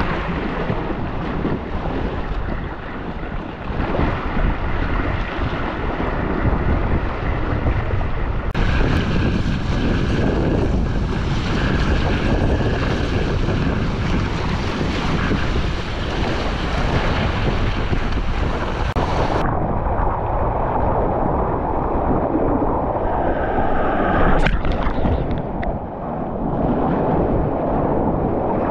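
Strong wind buffeting the microphone and waves and spray rushing along the hull of a Hobie Tandem Island sailing kayak under way in rough, choppy sea. The noise changes abruptly about a third of the way in and again about two-thirds in, with a brief sharp splash or knock near the end.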